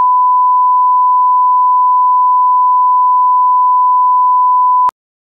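Steady 1 kHz line-up tone from bars and tone, the reference tone that sets audio levels. It cuts off abruptly with a faint click shortly before the end.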